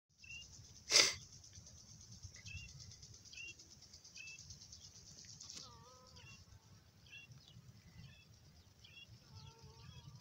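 Rural field sounds: a sharp knock about a second in, a steady high hiss that cuts off about halfway, small birds chirping again and again, and a farm animal calling twice in wavering bleats in the second half.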